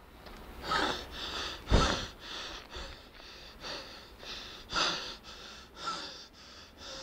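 A man panting heavily close to the microphone while walking uphill, out of breath, with quick noisy breaths in and out. A louder bump about two seconds in.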